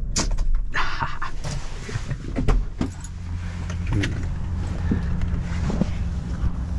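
A vehicle engine running steadily, its low drone growing stronger about three seconds in, with scattered clicks and knocks.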